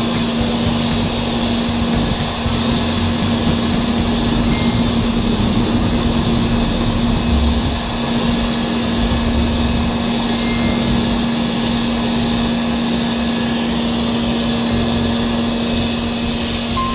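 Pressure washer running without a break, its motor and pump holding one steady hum, with the hiss of the high-pressure water jet striking concrete.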